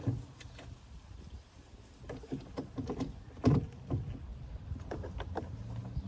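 Scattered knocks and clicks of hand work on a truck door mirror mount, the loudest about three and a half seconds in.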